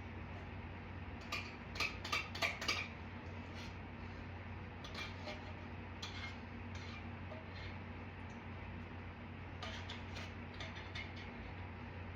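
A spoon knocking and scraping against a food container and bowl while food is scooped out. There is a quick run of about five knocks a second or so in, then scattered lighter clicks, over a steady low hum.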